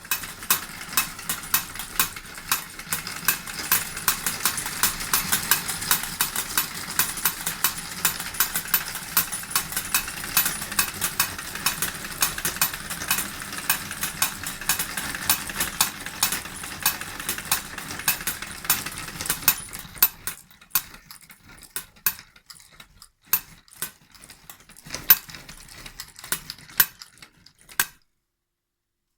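Model steam engine hissing as it drives two miniature forging hammers that clatter in a fast, even rhythm. About twenty seconds in the hiss fades and the hammer blows slow to scattered knocks, then stop as the engine runs down.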